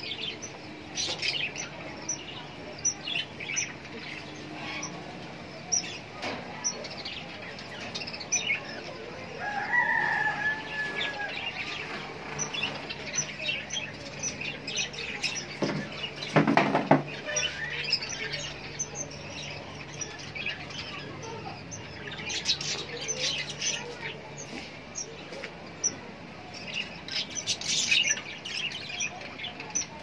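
A flock of budgerigars chattering in an aviary: many quick high chirps and twitters throughout, with wing flapping and one louder burst of flapping or rustling about halfway through.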